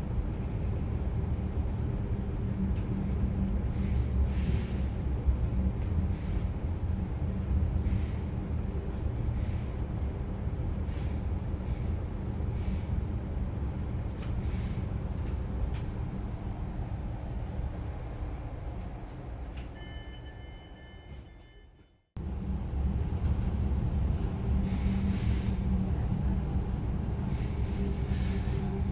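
Koleje Mazowieckie regional electric train running, heard from inside the carriage: a steady low rumble with scattered short clicks from the wheels and track. About two-thirds through, the sound fades away to nothing, then comes back in suddenly at the same level.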